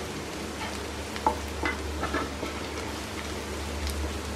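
Chopped garlic, onion and chili flakes sizzling in hot oil in a nonstick frying pan while a wooden spatula stirs them, with a few short scrapes and taps of the spatula on the pan around the middle.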